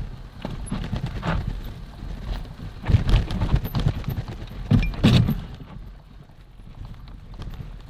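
Mountain bike rolling and rattling over a rough dirt trail, with irregular knocks and two louder clusters of jolts about three and five seconds in.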